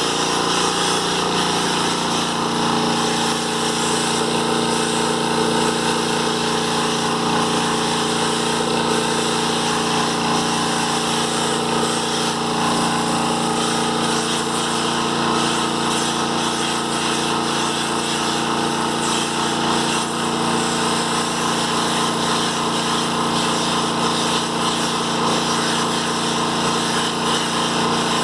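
Electric air compressor running steadily with the hiss of a spray gun, applying matte varnish to a painted fridge.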